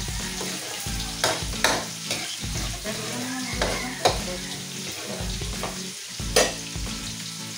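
Food sizzling in hot oil in a pan while a spatula stirs and scrapes it, with a few sharp knocks of the spatula against the pan.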